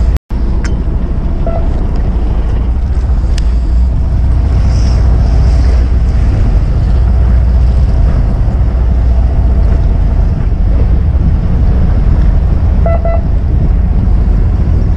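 Steady wind rumble on the microphone aboard a small boat at sea, with the wash of waves and the boat underneath. The sound cuts out for a split second just after the start.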